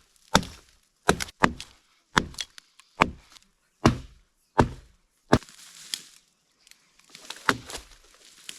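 Wood being chopped: a run of sharp blows about one every second, a couple of them in quick pairs, then a pause and one last blow near the end.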